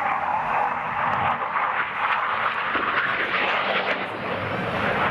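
Jet noise from a BAE Hawk T1 trainer's single Rolls-Royce Turbomeca Adour turbofan as it flies display manoeuvres overhead: a steady, dense rushing sound with no breaks.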